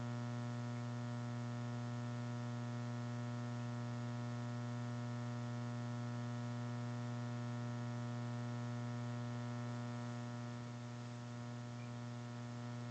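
Steady electrical mains hum: a low, unchanging drone with a stack of overtones, and nothing else on top.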